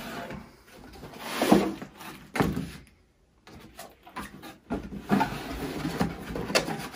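Cardboard shipping box being unpacked: the flaps scraping and folding open, with rustling and a few knocks as the contents are lifted out and set on a table. The sound cuts out completely for a moment about three seconds in.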